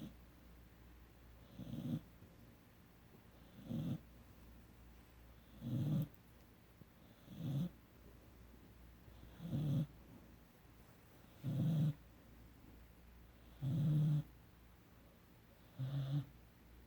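A 17-week-old Rottweiler–Mastiff mix puppy snoring in its sleep, with one snore about every two seconds, each about half a second long.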